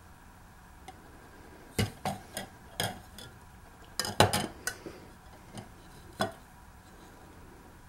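A handheld dissolved-hydrogen meter being handled and dipped into a plastic cup of water: a string of light knocks and clicks, the probe and the meter's casing tapping against the cup, with the loudest knocks about halfway through.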